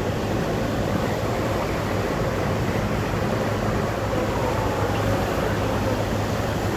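Steady low drone of a passenger ferry's engine, heard from the open deck, with a rushing hiss of wind and water over it.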